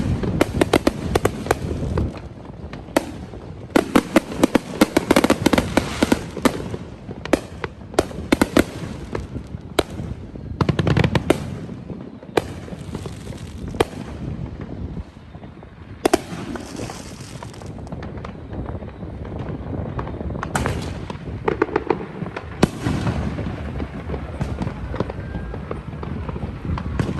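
Fireworks going off in dense volleys: many sharp bangs and crackling pops, some close together, with quieter stretches between the heavier bursts.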